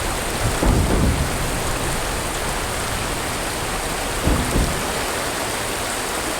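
Steady rush of river water flowing over rocks, with two brief low rumbles, one about half a second in and one about four seconds in.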